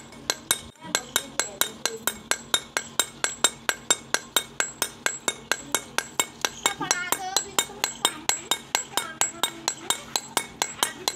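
A hammer strikes a pointed steel chisel held against a stone sil batta grinding slab in quick, even metallic clinks, about four a second. The clinks are the slab's face being chipped with fresh pits to roughen it for grinding again.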